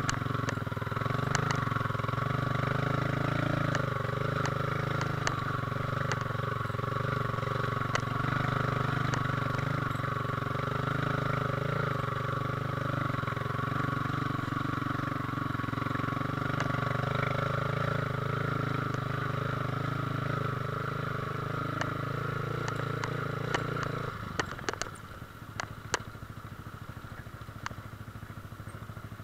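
Yamaha R15 V3's 155 cc single-cylinder engine running at a steady note as the motorcycle rides a rough dirt track, with scattered clicks and rattles. About 24 seconds in the engine sound falls away sharply, leaving a quieter hum and the clicks.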